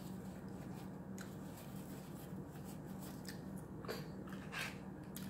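A person chewing banana bread close to the microphone, with a scatter of short clicks and mouth sounds, the loudest two near the end, over a steady low hum.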